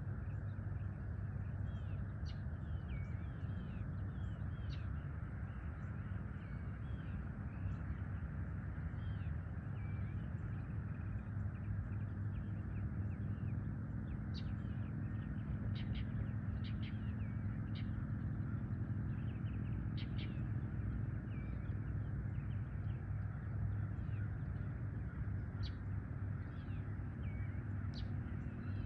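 Birds calling at sunrise: many short high chirps and calls scattered throughout, over a steady low rumble.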